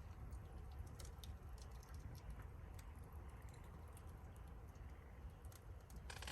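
Wood fire crackling in a fire-pit stand: scattered sharp pops and ticks over a steady low rumble, with a brief denser cluster of crackles near the end.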